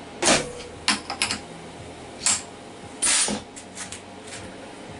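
Irregular sharp clicks and short clattering knocks, about six of them, from hands handling things at a CNC mill, over a faint steady machine hum.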